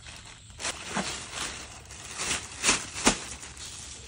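Thin clear plastic bag crinkling and rustling as it is handled around a damp cloth bundle, in a run of sharp crackles, the loudest about three seconds in.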